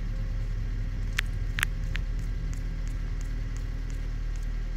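A steady low rumble with a few short clicks between one and two seconds in.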